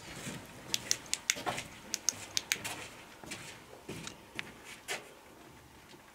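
Footsteps scuffing on a dirt floor: a quick, irregular run of sharp clicks and scrapes over the first three seconds, then a few more before it goes quiet.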